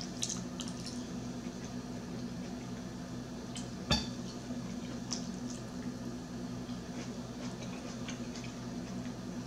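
Chewing and small wet mouth sounds over a steady hum, with a few light clicks of a metal fork; the loudest, about four seconds in, is the fork striking the plate.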